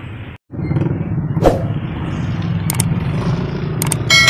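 Street traffic: motorcycle and car engines running steadily as they pass on a wet road. Partway through there is a brief knock, and a couple of small clicks come near the end.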